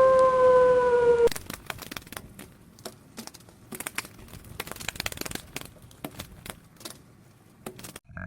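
A dog howling on one long held note, cut off abruptly about a second in. Then faint, irregular clicks and crackles.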